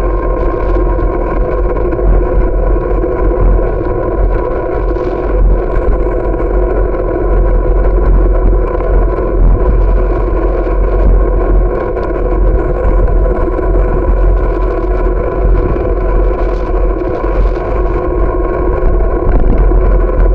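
Wind buffeting the microphone and tyre rumble from a bicycle riding over asphalt, loud and continuous, with a steady hum running underneath.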